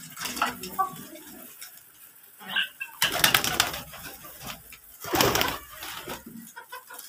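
Domestic pigeons cooing in a coop, with two loud bursts of wing flapping about three and five seconds in.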